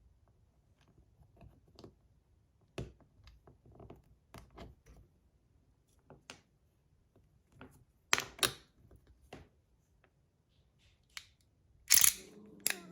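Scattered clicks and taps of small plastic parts being handled as a 3D-printed slider fidget is taken apart and its plates worked on, with a louder pair of knocks about eight seconds in and a loud clatter near the end.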